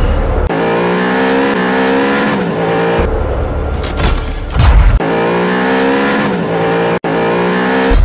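Sound-designed car engine revving, heard in two long nearly identical passes with a deep low hit between them, mixed with music.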